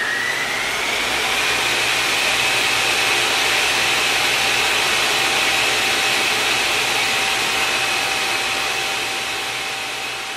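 Steady rushing, hiss-like noise with a whine that rises in pitch and levels off about a second in, then holds with a fainter lower tone beneath. It starts to fade near the end, like an outro sound effect.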